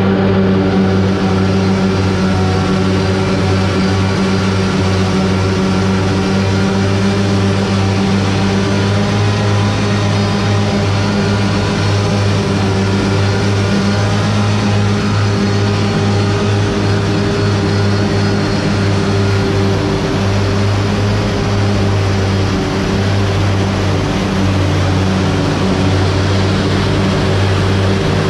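Steady motor hum holding one constant pitch, with no change in speed or load.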